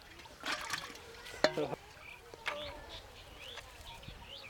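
Live fish being put into a metal cooking pot: a rustle, then a sharp knock followed by a brief croak-like sound, and another knock about a second later.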